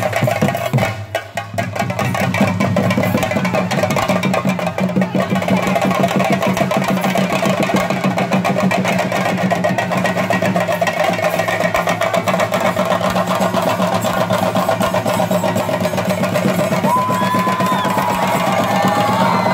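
Fast, continuous drumming on chenda drums with a brief dip about a second in. Near the end a wavering, whistle-like tone glides over the drumming.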